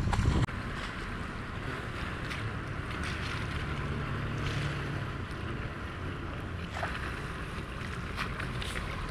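Open-air harbour ambience: wind buffeting the microphone over a steady wash of water, with a short knock right at the start and a few small clicks.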